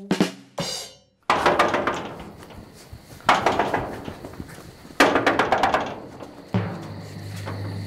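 Three heavy bangs, about a second and a half to two seconds apart, each ringing out for about a second before dying away.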